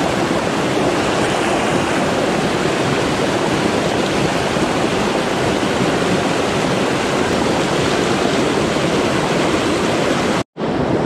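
Rushing mountain river: a steady, even noise of fast-flowing water, broken by a brief gap of silence near the end.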